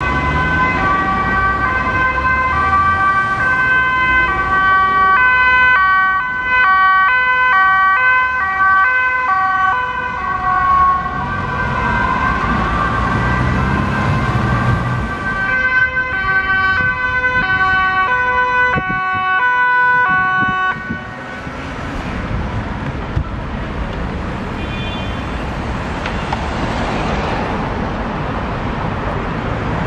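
Two-tone sirens of Dutch police cars on an urgent run, a Mercedes-Benz B-Class and then a Volkswagen Touran, stepping back and forth between two pitches, sometimes slowly and sometimes in quick alternation. The sirens stop about two-thirds of the way through, leaving the steady noise of road traffic.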